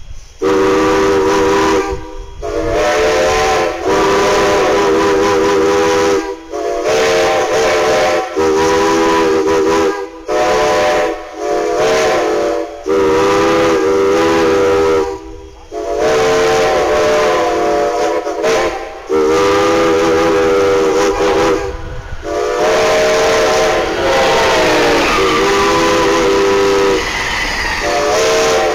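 Steam locomotive chime whistles, from Strasburg No. 89 and the engine beside it, blowing a long series of blasts with short gaps between them. Each blast sounds several notes at once, the chord changes from blast to blast, and near the end one blast sags down in pitch.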